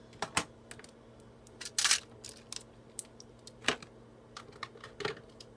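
Irregular small clicks and clatter of makeup products and containers being handled and set down, with a longer noisy rattle about two seconds in.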